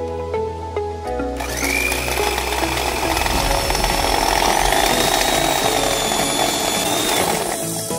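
Electric hand mixer whipping cream in a stainless steel bowl, starting about a second and a half in with a steady motor whine and the whir of the beaters. The whine steps up in pitch about halfway through and stops near the end. Soft background music plays before it starts.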